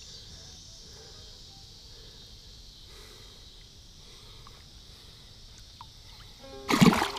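Insects droning steadily in the background, then a sudden loud splash near the end as the hand-held largemouth bass kicks in the water.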